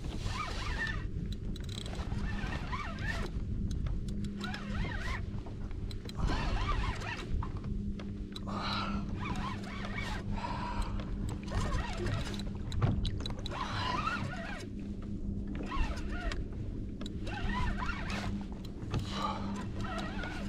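Fishing reel being cranked in short spells, pausing between them, while a hooked fish is fought from a kayak. A steady low hum runs underneath.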